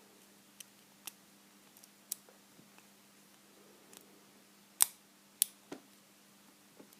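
Lock pick clicking and scraping against the pins inside a vintage Corbin pin tumbler padlock: scattered sharp clicks, the two loudest just under five and about five and a half seconds in. The pins are binding and grabbing the pick, and the lock is not giving.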